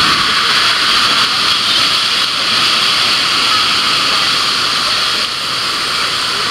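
Steady, loud rush of water pouring over a surf simulator's wave surface, with no breaks.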